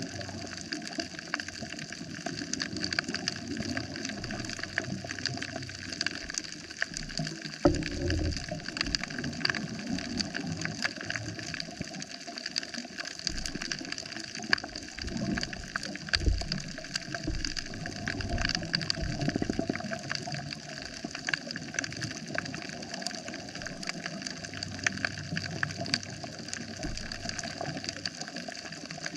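Coral reef heard underwater: a steady, dense crackle of countless tiny clicks, the crackle of snapping shrimp. Low thumps and rumbles come now and then, the sharpest about a quarter of the way in and again about halfway.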